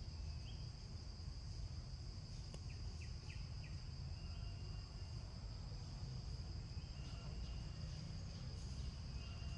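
A steady, high, continuous insect drone over a low rumble of background noise, with a few short high chirps scattered through, several of them in quick succession a few seconds in.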